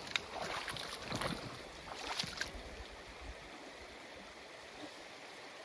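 Steady rushing of a river over rapids, with a few brief sharp sounds in the first two and a half seconds.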